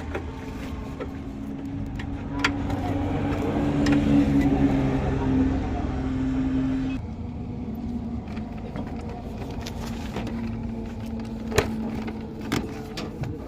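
An engine running steadily with a low hum, with a few sharp clicks and knocks from hands working on parts.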